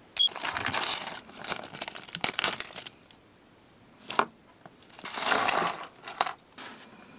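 A clear plastic parts bag crinkling as it is cut and pulled open, then small metal nuts, bolts and washers tipping out onto a table with a run of light clinks near the end.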